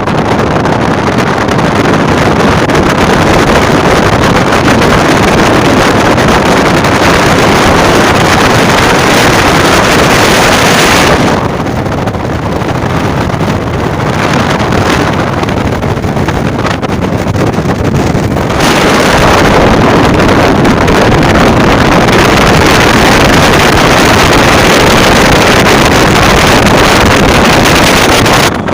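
Heavy wind noise buffeting the microphone, very loud and continuous, easing somewhat from about 11 to 18 seconds in.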